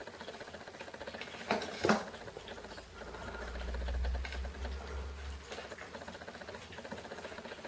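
Steady fine rattling hiss from a camera lens's vibration-reduction (VR) stabilizer, picked up by the camera's own microphone. Two sharp knocks come about one and a half to two seconds in as kittens scuffle on a wooden shelf, and a low rumble follows for a couple of seconds in the middle.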